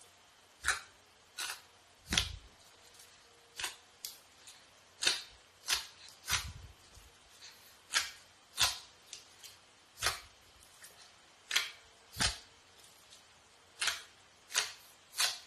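Slime being pressed and poked by hand, giving a run of short wet clicking pops, roughly one a second or a little faster, some with a soft low thud.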